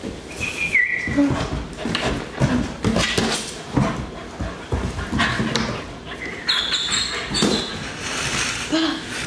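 German Shepherd moving about on a laminate floor, claws clicking and scrabbling many times, with a few short high-pitched whines near the start and again past the middle.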